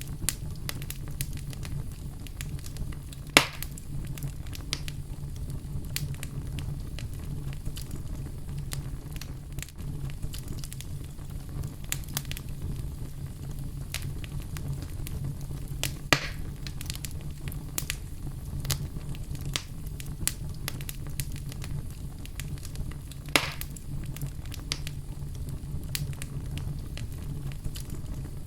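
Wood fire burning in a fireplace: a steady low rumble of the flames with frequent small crackles and three louder pops, about three seconds, sixteen seconds and twenty-three seconds in.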